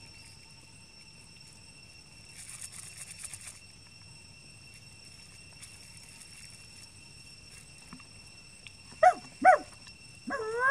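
Young macaque squealing: two short, sharp squeals about half a second apart near the end, then a third rising squeal that cuts off suddenly.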